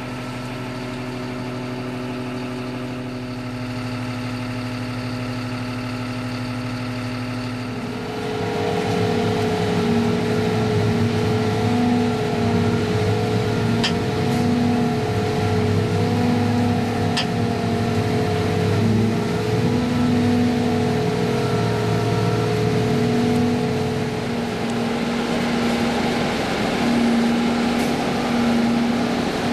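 Self-propelled crop sprayer's engine and drive running, heard from inside the cab as a steady, droning hum. About eight seconds in it grows louder and more uneven. Two short clicks a few seconds apart come around the middle.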